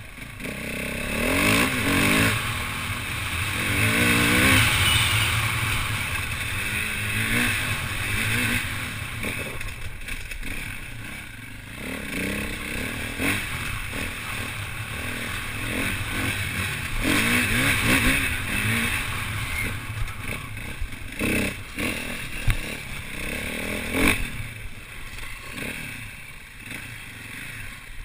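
KTM 450 EXC single-cylinder four-stroke enduro bike being ridden on a dirt track, its engine revving up and down repeatedly as it accelerates and shifts. Clatter and knocks come from the bike over the bumps, with two sharp knocks near the end.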